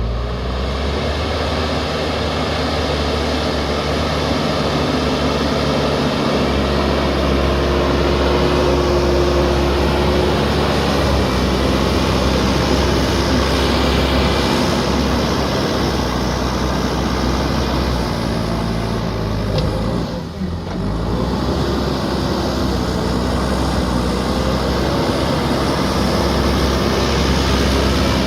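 JCB backhoe loader's diesel engine running steadily under work, with a thin whine for several seconds in the first third and a brief drop in level about twenty seconds in.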